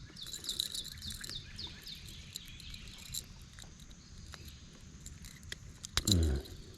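A bird calling a quick run of high chirps in the first second or so, over a faint outdoor background with scattered small clicks and taps.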